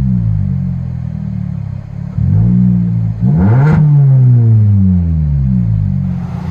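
Straight-piped 2012 Hyundai Elantra's 1.8-litre four-cylinder exhaust, loud and raspy with no muffler or resonator. The revs are falling off, then rise quickly with one burst of throttle about two seconds in, and sink slowly again.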